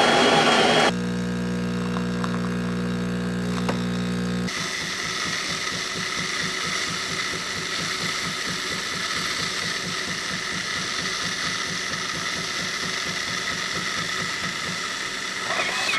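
Jura E8 super-automatic espresso machine making a flat white. A loud rush of noise cuts off about a second in; then the grinder runs with a steady hum for about three and a half seconds. After that the pump pulses rapidly under a hiss as milk froth runs from the milk spout.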